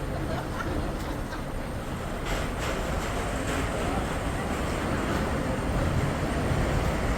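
Steady vehicle rumble and road noise, slowly growing louder.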